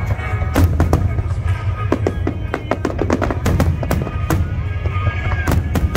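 Fireworks going off in quick, irregular succession, many sharp bangs and crackles, over music with a strong low rumble beneath.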